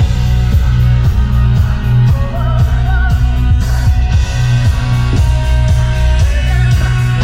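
Background rock music with electric guitar, bass and drums, and a steady beat.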